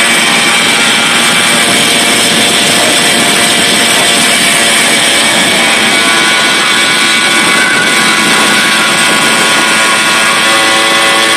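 Tomos Targa moped's small two-stroke engine running steadily and loudly while riding along at cruising speed.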